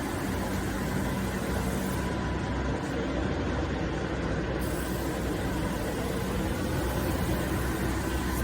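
Triple-action hydraulic metal scrap baler running, a steady hum from its hydraulic power unit.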